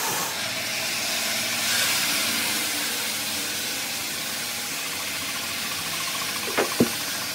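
Marble slab polishing machines running steadily with a hiss. Two sharp knocks near the end.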